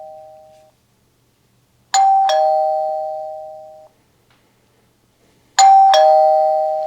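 Electronic ding-dong doorbell ring tone of the Tapo D205, a higher note then a lower one, each fading away. It sounds twice, about three and a half seconds apart, after the end of an earlier chime, and the last ring is louder as the ring volume is adjusted.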